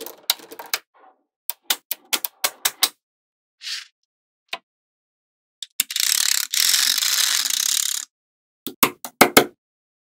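Small neodymium magnetic balls snapping together in sharp clicks, in quick runs of several at a time. Around the middle comes a dense rattling clatter lasting about two seconds as a strip of balls is laid along the edge of the panel.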